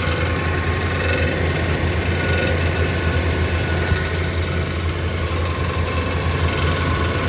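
2011 Ram pickup engine idling steadily, the noise it makes when cold. The owner traced that noise to a bent metal plate between the engine and transmission.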